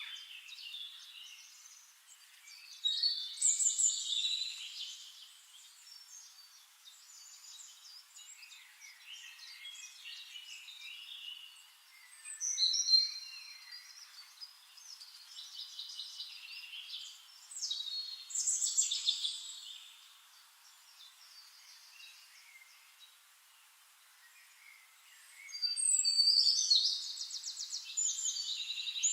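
Songbirds singing in a recorded nature soundscape: phrases of chirps and warbles a second or two long, several times over, with softer twittering between, and a fast trill near the end.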